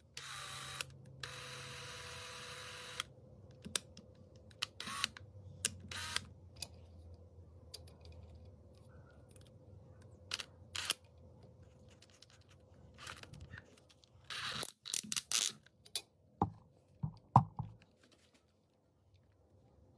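Scattered sharp mechanical clicks, with a short hissy stretch at the start and a denser run of clicks about fifteen seconds in.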